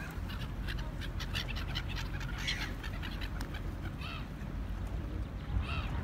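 A flock of black-headed gulls calling repeatedly: many short, harsh cries in quick succession, over a steady low rumble.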